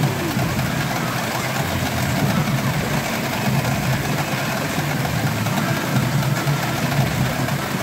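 Steady, dense din of a pachinko hall: many machines running and steel balls clattering together, with no pauses.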